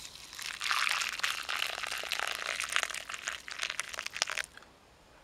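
Dry plant material crumpled and rustled by hand, a dense crinkling crackle lasting about four seconds and stopping shortly before the end.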